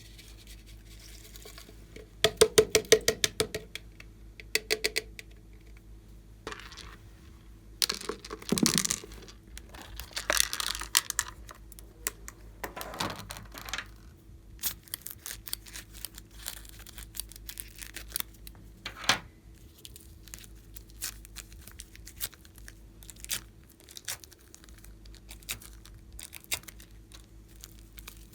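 Hands squishing and stretching slime: runs of quick sticky clicks and pops, with a few short crackly stretches, over a faint steady hum.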